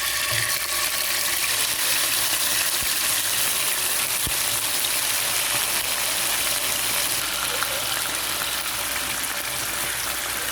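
Chicken pieces sizzling in hot oil in a pan: a steady, even hiss that holds unchanged throughout.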